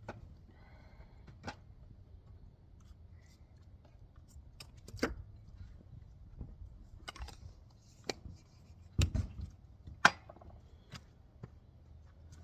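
Scattered sharp clicks and knocks of hand tools and metal parts being handled during work on a small engine, coming at uneven intervals, with a cluster of louder knocks near the end.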